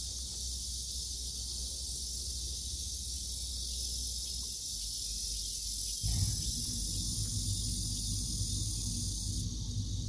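Cicadas singing in a steady, continuous high buzz. A low rumble sits underneath and grows louder about six seconds in.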